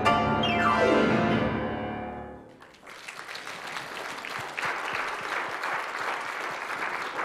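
Grand piano ends a lively offertory piece with a fast downward run and a final chord that fades out. From about three seconds in, the congregation applauds.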